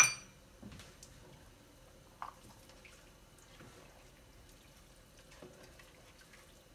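A spoon stirring a pot of simmering lentil stew: soft wet sloshing with a few faint taps and scrapes against the pot, one a little louder about two seconds in. A sharp clink of the spoon on the pot comes right at the start.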